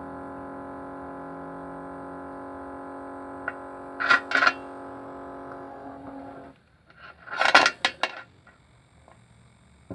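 A small electric vibration motor runs with a steady, buzzy hum, with a click and two short rattling bursts about four seconds in. The hum cuts off about two-thirds of the way through, and a quick cluster of rattles follows.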